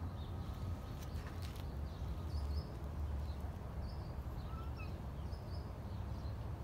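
Outdoor background: a steady low rumble, with small birds chirping briefly now and then and a couple of sharp clicks about a second in.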